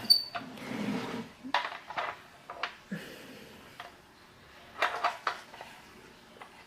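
Hard plastic parts of an ultrasonic cool mist humidifier clicking and knocking as they are handled, a scatter of light clicks and taps with short pauses between them.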